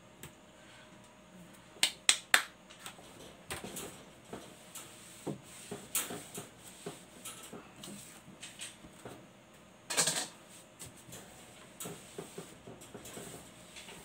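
Scattered sharp clicks and taps of kitchen things being handled on a table: plastic containers and lids, with three quick clicks about two seconds in and a louder short rattle about ten seconds in.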